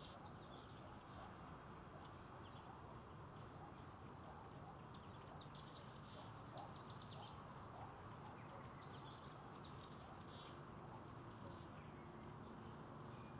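Faint steady background hiss with scattered bursts of quick, high chirps from small birds.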